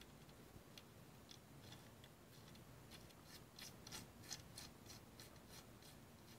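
Near silence broken by faint, scattered small clicks and ticks as fingers thread a brush retainer cap into the brush holder of a Milwaukee 5220 straight grinder, the clicks most frequent in the middle of the stretch.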